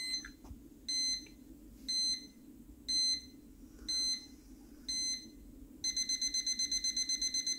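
Electronic beeping: a short high beep about once a second, six times, then a fast run of beeps at about eight a second near the end, like a countdown.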